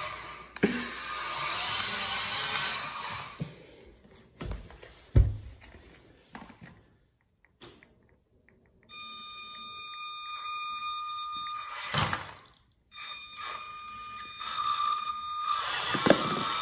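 Small electric RC toy truck on rubber tracks: a rattling run over a hard floor, two thumps about four to five seconds in, then after a short gap the motor's steady high whine, broken by one sharp knock.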